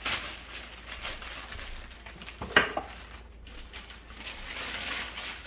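Clear plastic packaging bag crinkling and rustling as it is pulled off a toy campfire, with one sharper, louder crackle about halfway through.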